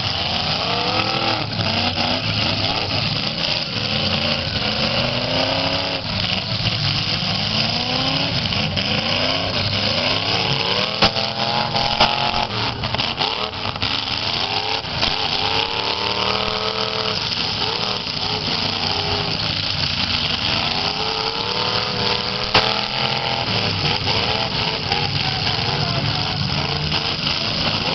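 Several V8 demolition-derby cars revving hard over and over, their pitch climbing in short repeated runs, with a few sharp bangs of cars colliding about eleven and twelve seconds in and again near twenty-three seconds.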